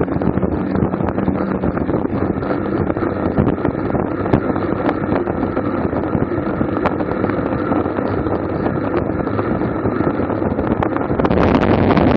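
Wind buffeting the microphone of a camera mounted on a racing bicycle, with steady rolling road noise underneath; the rush grows louder and brighter near the end.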